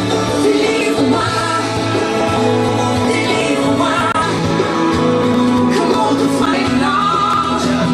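A song with a singing voice and instruments, played over loudspeakers.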